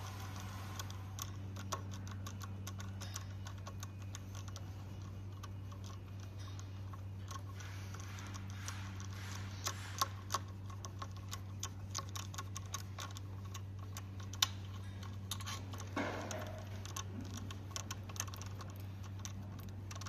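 Hand screwdriver driving a small screw into the folding buckle's mounting hole: irregular light metallic clicks and taps, busier in the second half, with one sharper click about three-quarters of the way through. A steady low hum runs underneath.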